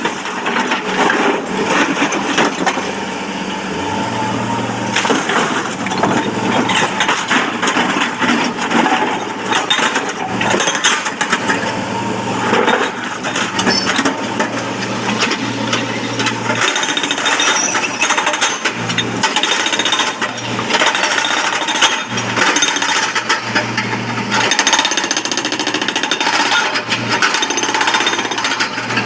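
Hydraulic rock breaker on an excavator hammering stone, a rapid continuous clatter of chisel impacts. Under it, excavator diesel engines hum, coming and going as the machines work.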